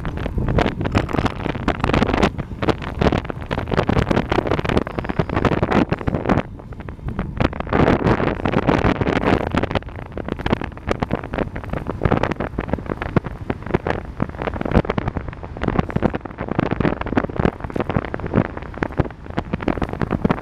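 Wind rushing and buffeting over the microphone of a camera riding on a road bike descending at speed, rising and falling in gusts.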